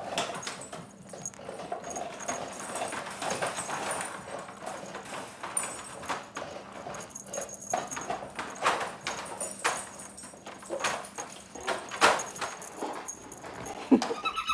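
A dog gnawing and chewing on a chew: irregular crunching and clicking of teeth, several times a second.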